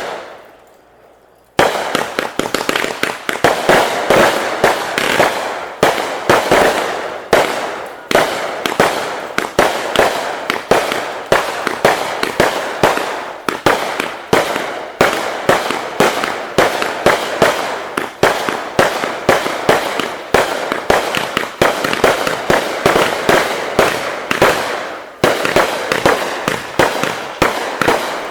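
Fireworks going off: a single bang at the start that dies away, then from about a second and a half in a continuous rapid barrage of bangs and crackling pops.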